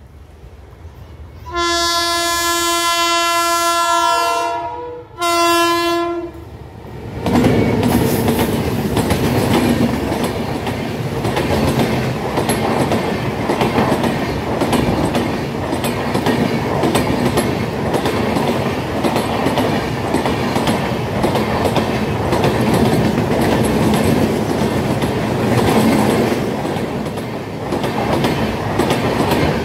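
A WAP-7 electric locomotive sounds its horn, one long blast and then a shorter one, as it approaches. Then comes the loud, steady rush and rhythmic wheel clatter of the locomotive and its LHB coaches running past close by.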